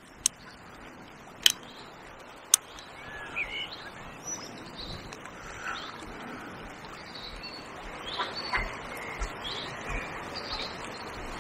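Steady rush of river water flowing around a wading angler, with birds chirping on and off. Three sharp clicks in the first three seconds stand out above the water.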